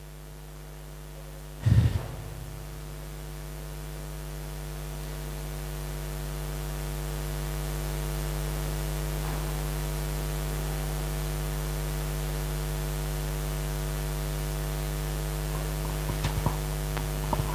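Steady electrical mains hum in the sound system, growing louder over the first several seconds. A loud thump comes about two seconds in, and a few faint clicks come near the end.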